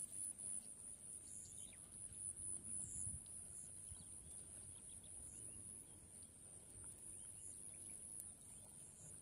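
Faint open-field ambience: a steady high-pitched whine, with scattered soft chirps and ticks and a low rumble underneath.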